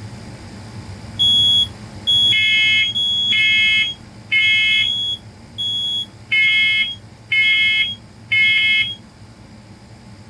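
Interconnected First Alert smoke alarms sounding in the temporal-three smoke pattern: two rounds of three half-second beeps, with a higher single-pitched beep from another alarm layered over them. The beeping stops about nine seconds in.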